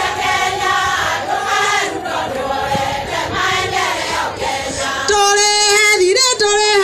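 A large group of women singing together in chorus as they dance. The singing grows louder and clearer about five seconds in, with one stronger voice standing out.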